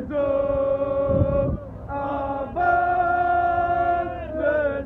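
Crowd of male football supporters chanting in unison, holding long sung notes in three or four phrases. A brief low rumble comes about a second in.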